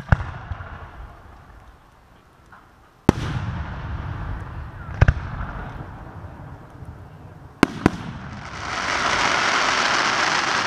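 Aerial fireworks: sharp bangs about 3 s and 5 s apart, then a quick double bang, followed from about 8 s in by a long, loud crackling hiss as a shell bursts into crackling stars.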